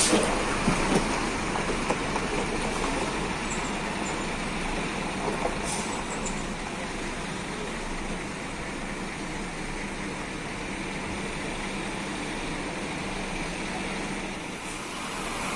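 Large diesel bus engine running steadily, a constant hum.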